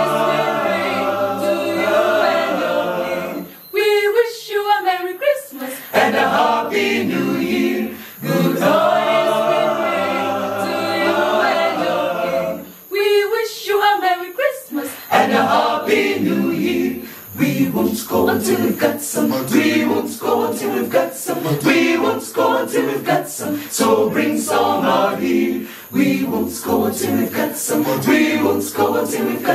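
Mixed choir of men and women singing a cappella. Held chords alternate with two brief fast runs, then the singing turns livelier over a steady beat of sharp clicks.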